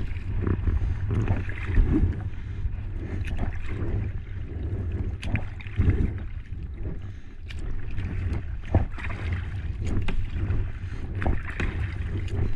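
Water lapping and gurgling against the plastic hull of a sit-on-top kayak, with wind rumbling on the microphone and scattered light knocks.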